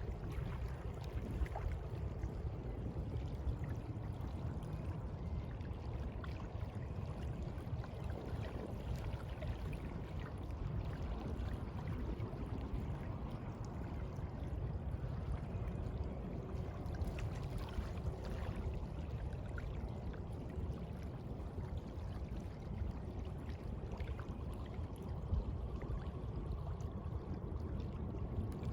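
Sea water washing and lapping steadily, with faint small ticks and splashes throughout.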